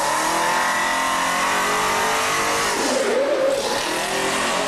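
A racing engine run at high revs, its pitch sagging slowly downward over a couple of seconds. A short wavering tone cuts in about three seconds in.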